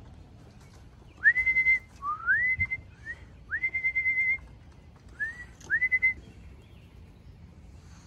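A person whistling about six rising calls in a row, each sweeping up and holding a high note, one held longer with a flutter. This is a pigeon fancier's call to coax racing pigeons landing at the loft into the trap.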